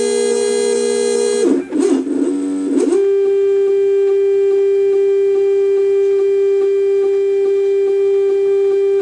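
Stepper motors of a homemade wooden CNC router whining as the machine's axes move: a chord of steady tones, a brief shift of pitch after about a second and a half, then one steady tone held for the last six seconds.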